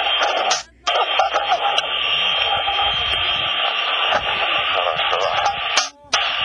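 Radio static: a steady, loud hiss squeezed into a narrow radio-like band, cutting out abruptly twice, about a second in and near the end, like a squelch closing between transmissions.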